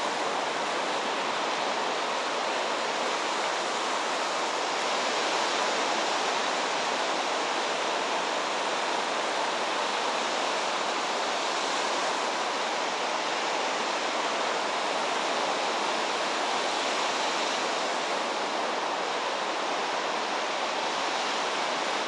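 Sea surf, small choppy waves breaking and washing onto a sandy shore, heard as a steady, even hiss.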